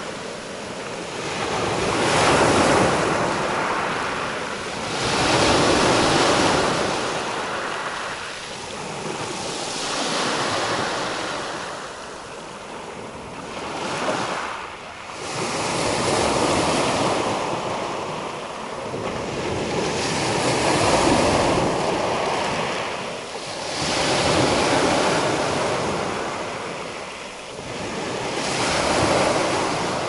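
Black Sea surf breaking on the shore, each wave swelling up and washing back about every three to four seconds.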